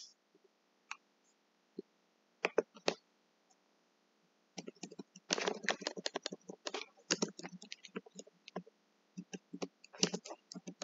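Typing on a computer keyboard: a few separate clicks over the first few seconds, then quick runs of key clicks through the rest.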